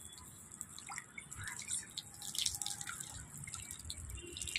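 Garden hose shower nozzle spraying water over a hibiscus plant's leaves: a quiet, steady hiss with scattered drips and splashes.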